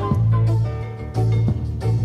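Live jazz-fusion band playing from a cassette recording of a concert: a loud, driving bass line with regular drum hits under a melody line.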